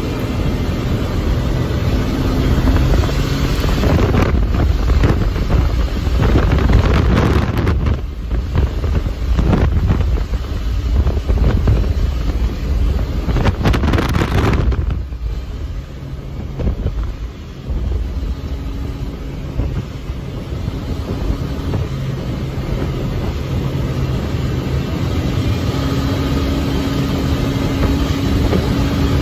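Wildcat XX side-by-side's engine running steadily at speed, heard from inside the open cab with heavy wind buffeting the microphone, strongest through the first half and easing after the middle.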